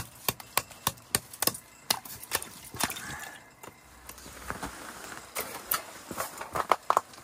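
A quick run of sharp knocks, about three a second, that dies away after about two and a half seconds, followed by quieter rustling and a few scattered clicks.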